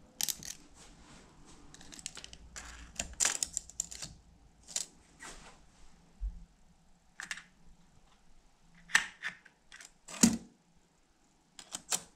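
Steel tape measure clicking and rattling as it is handled and its blade and hook knock against a door and frame: a string of irregular sharp clicks, the loudest two about three quarters of the way through.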